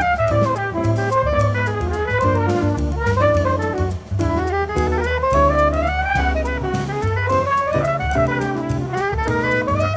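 Jazz band playing: a horn carries a winding melody that climbs and falls in quick runs, over bass and drum kit. The music dips briefly about four seconds in.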